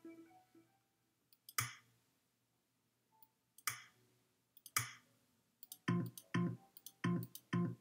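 Scoreboard software's click sound effects: three separate sharp clicks as its menu is opened and closed. Near the end comes a quicker run of four short pitched clicks, about two a second, as points are added to a team's score.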